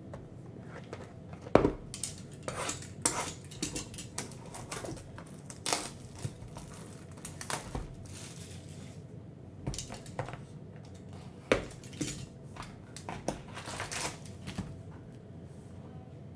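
Shrink wrap crinkling and tearing as it is stripped off an Upper Deck Stature hobby box, then the cardboard box being opened and packs pulled from its tray, in a string of irregular clicks, crackles and knocks. The sharpest knocks come about a second and a half in and again near the middle.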